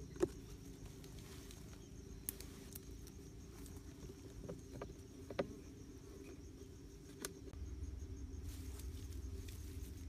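Scattered small clicks and taps as hands fit a bamboo trigger stick and rubber bands onto a PVC-pipe bird trap with a plastic box lid, the sharpest about a quarter second in. A faint high insect trill runs underneath, and a low rumble comes in near the end.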